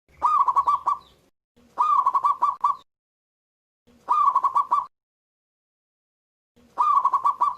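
Local zebra dove (perkutut) cooing its song: four phrases of about a second each, every one opening with a rising note and running into a quick string of short coos, with brief silent pauses between phrases.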